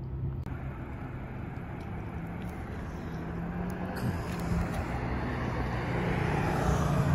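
Steady vehicle rumble with a low hum under road noise, growing gradually louder toward the end.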